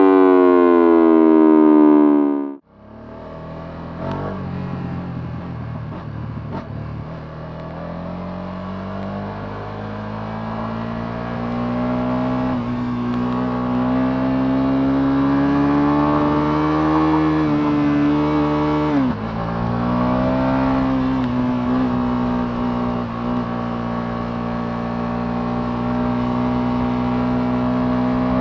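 A loud falling tone cuts off about two and a half seconds in. Then the Ducati Multistrada V2S's 937 cc V-twin engine runs on the move, its pitch climbing slowly as the bike gathers speed, with two brief dips in pitch before it climbs again.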